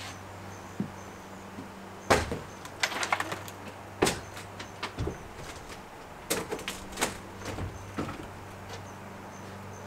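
Old plywood roof sheeting of a wooden shed being pushed off from inside and falling away. It makes several bursts of sharp wooden knocks and clattering thuds, with a heavier thump about five seconds in. A steady low hum runs underneath.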